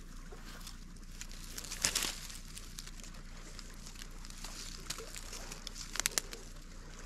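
Dry grass stalks rustling and crackling as a hand pushes in to pick a wild plant, with sharp crackles about two seconds in and again near the end.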